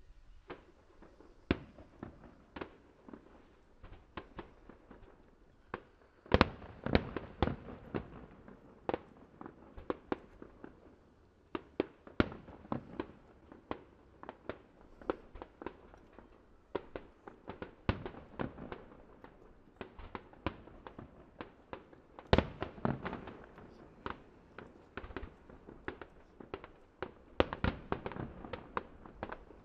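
Aerial fireworks shells bursting in quick, irregular succession: sharp bangs and cracks, at times several a second, with the loudest volleys about six seconds in and again a little past twenty seconds.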